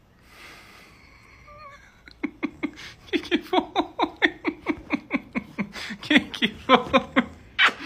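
A woman laughing in a long run of short bursts, about four a second, starting about two seconds in after a quiet moment.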